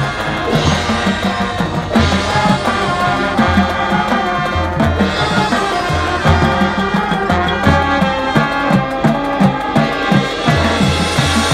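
Marching band playing its field show: brass over drums and low brass, with a steady pulsing beat.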